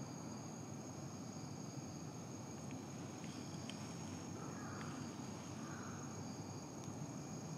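Outdoor background ambience: a steady low rumble with insects trilling at a steady high pitch, and a few faint clicks.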